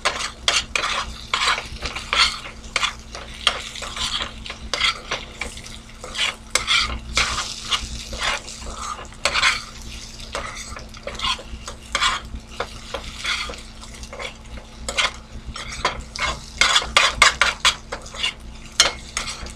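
Metal spoon scraping and tapping against a nonstick frying pan as scrambled eggs and onions are stirred and turned, with a frying sizzle underneath. The strokes come irregularly, then quicker and louder near the end.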